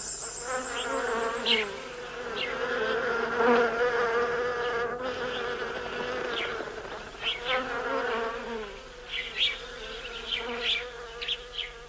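Flies buzzing, a wavering drone that swells and fades as they fly about, with short high chirps scattered over it, more of them in the second half. A sound-effect ambience of a hot, still summer day.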